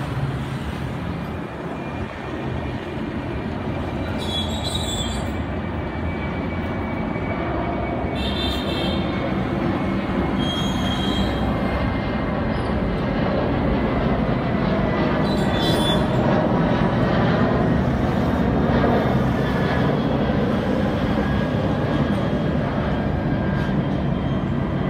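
Jet engines of an Airbus A330-300 at takeoff thrust: a steady deep roar that slowly grows louder, peaks a little before the end, then eases slightly.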